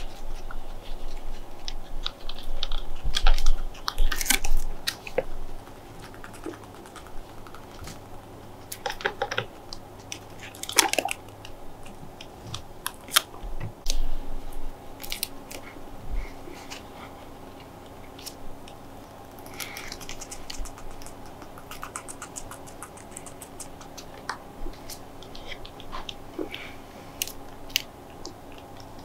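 Guinea pigs chewing and moving about, with irregular small clicks and crunches, a few of them louder.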